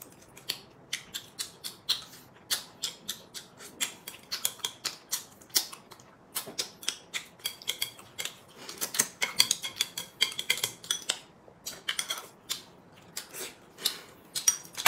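Chopsticks clicking and clinking against porcelain rice bowls and plates during a meal, many quick irregular clicks, a few a second, some ringing briefly.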